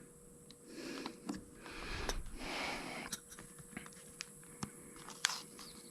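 Plastic bottle of Slime tire sealant being squeezed, pushing sealant through its extension hose into a garden tractor's front tire valve stem: two stretches of rough hissing in the first three seconds, then a few light clicks and crackles of the bottle.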